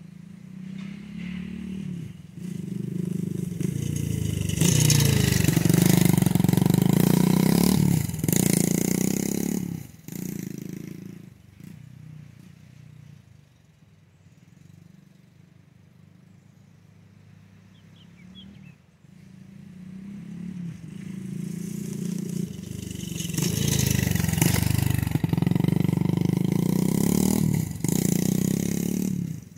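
Dirt bike engine passing close by twice: each time it builds up from a distance, is loudest for a few seconds with the revs rising and falling, then fades away, running quietly in the distance in between.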